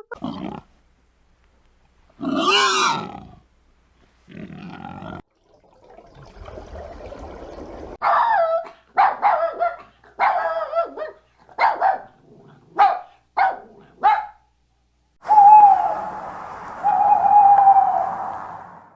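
A dog barking and howling: a couple of separate calls, then a run of about eight short barks. It ends in two long, steady howls.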